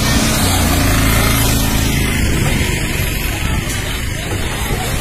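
Motor vehicle engine running close by: a loud, steady rumble with a hiss over it.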